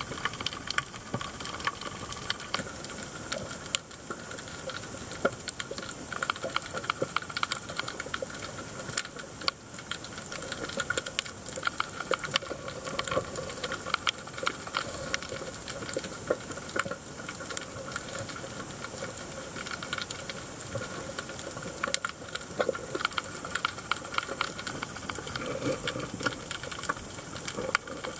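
Underwater sound picked up by a submerged camera on a rocky reef: a dense, continuous crackle of tiny clicks over a steady hiss.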